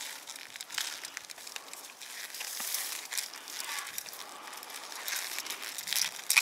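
Irregular close rustling and crackling with scattered sharp clicks, like something being handled or pushed through against the microphone.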